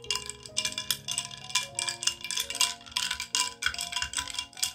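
Glass straw stirring a drink in a glass, clinking against the sides several times a second with a bright ringing tone, over soft background music.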